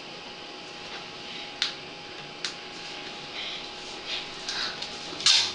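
Quiet room tone with a faint steady hum, broken by a few soft clicks and taps, with a louder sound just before the end.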